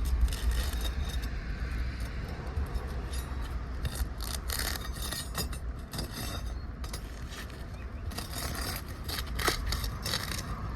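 Metal hand tool scraping, clicking and tapping against asphalt roof shingles in irregular short strokes, as the shingles above a damaged one are lifted and their fasteners worked loose. A steady low rumble runs underneath.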